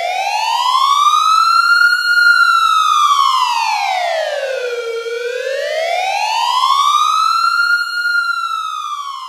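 Emergency siren sounding a slow wail: one clear tone climbs to its highest pitch about two seconds in, sinks to its lowest around five seconds, climbs again to peak near eight seconds and is falling at the end.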